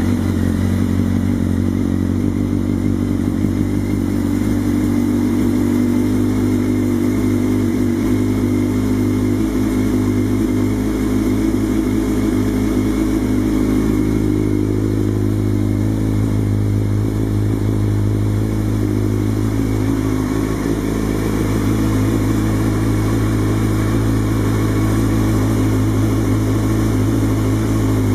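2003 Suzuki GSX-R 750's inline-four engine idling steadily through a Yoshimura full exhaust system, warming up after a cold start; the idle pitch shifts slightly a couple of times.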